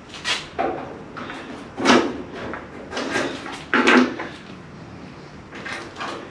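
A series of short rattles and scrapes, about six in all, as small bolts, parts and tools are picked through and handled on a wooden workbench.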